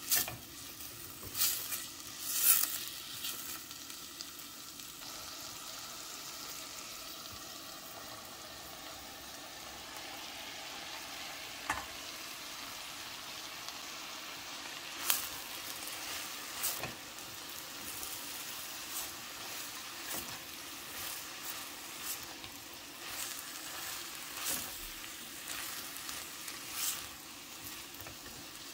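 Chopped vegetables sizzling steadily in olive oil in a stainless steel pot, with a silicone spatula scraping and knocking against the pot several times as they are stirred.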